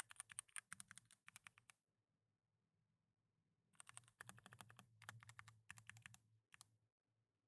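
Typing on a GMMK TKL mechanical keyboard with lubed Gateron Brown tactile switches: a quick run of keystrokes, a pause of about two seconds, then more bursts of typing that stop near the end.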